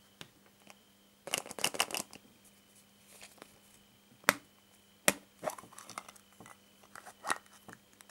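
Hard plastic surprise-egg capsules handled by hand: a quick run of rattling clicks as one is picked up from among the others, then two sharp snaps as the capsule's halves are pulled apart, followed by lighter plastic clicks and knocks as the toy inside is handled.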